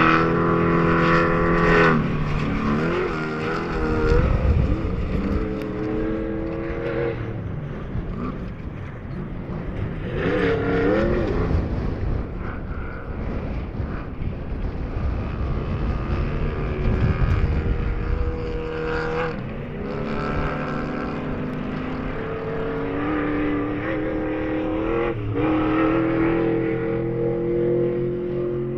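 Off-road race car engines revving and passing by, their pitch rising and falling with the throttle throughout, with a quick rise and fall about ten seconds in as one goes past.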